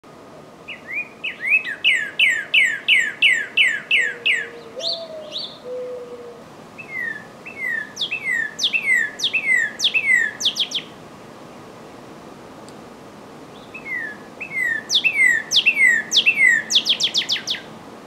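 Northern cardinal singing: three phrases of repeated clear, down-slurred whistles, about three notes a second, with pauses of a few seconds between them. The second and third phrases quicken into a run of fast, steep sweeping notes at the end.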